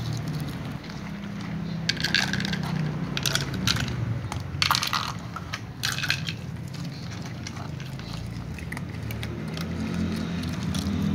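Several cats crunching dry kibble from small plastic bowls: a run of sharp crackling crunches and clicks against the bowls, thickest from about two to six seconds in, over a low steady hum.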